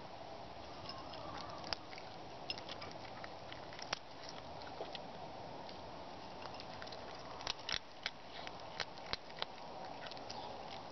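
A cat crunching and chewing its food: irregular sharp crunches, coming thicker about three quarters of the way through.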